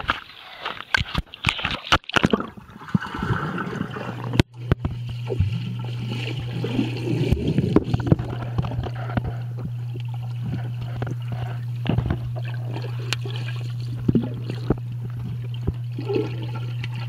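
Pool water sloshing and splashing around a handheld camera, with knocks as it is moved. About four seconds in, the sound turns to muffled underwater noise: a steady low hum with scattered clicks, lasting until near the end.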